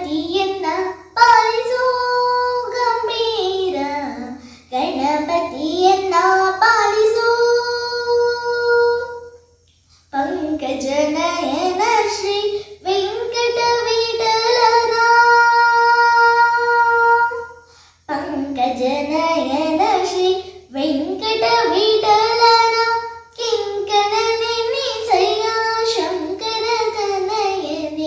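A young girl sings a Kannada devotional song to Ganapati solo, with no instruments. Her phrases end in long held notes, and she pauses briefly for breath twice.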